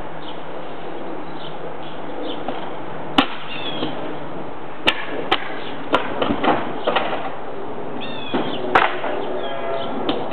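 Scattered sharp knocks and cracks of a tool prying and ripping asphalt shingles off a roof, about a handful of hits over a steady hiss, with a bird chirping a couple of times.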